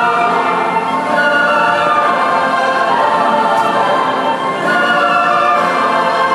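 A choir singing in several parts, with long held notes.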